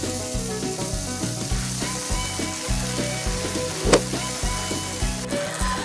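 Steaks sizzling on a barbecue grill, a steady frying hiss that stops a little after five seconds. There is a single sharp click about four seconds in.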